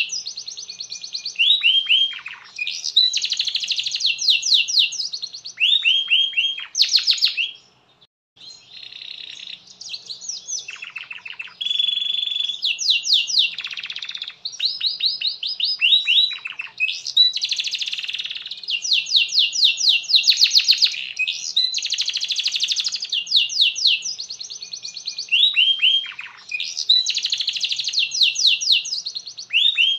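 Canary song: a long, continuous run of fast trills, rolls and rapidly repeated high notes, with short falling sweeps, broken only by a brief pause about eight seconds in.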